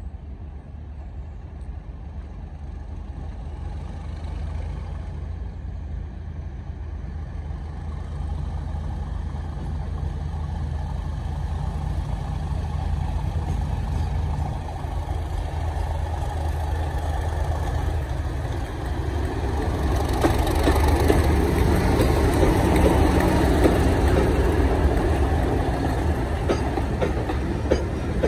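Diesel locomotive hauling a train of coaches, approaching under power and passing close by. Its engine grows steadily louder and is loudest in the last third, along with the rumble of the wheels on the rails.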